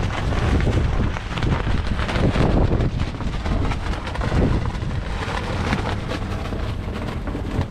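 Heavy wind buffeting the microphone in gusts, over the steady running of a John Deere 6R 155's 6.8-litre six-cylinder diesel engine.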